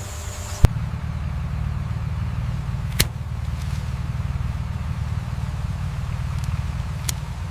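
A vehicle engine running steadily with a low, even hum, broken by a few sharp clicks.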